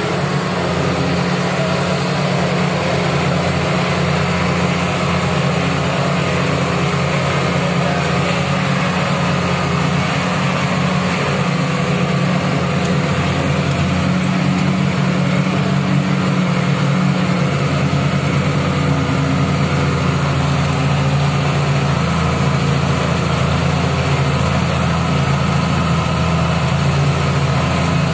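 Engine of the vehicle being driven, heard from inside its cab, running steadily as a constant low drone with road noise.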